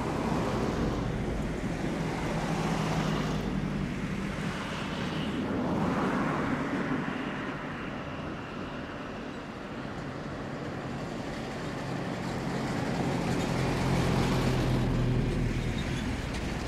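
Jet engines of a landing Boeing 737-800 (CFM56 turbofans): a steady low drone under a broad rush that swells and fades, dipping about halfway and loudest a few seconds before the end as the airliner rolls out on the runway.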